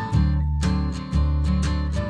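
Background music: a strummed acoustic guitar over a steady bass line, with strums about twice a second.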